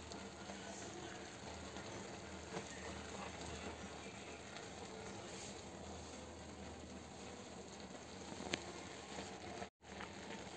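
Saag of mustard greens, spinach and fenugreek simmering in a steel pot, with a faint, even bubbling and crackle. The sound cuts out for an instant near the end.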